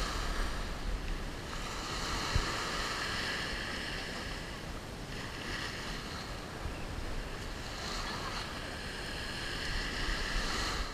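Small waves breaking and washing up and back over sand at the water's edge, a steady wash of surf with wind on the microphone.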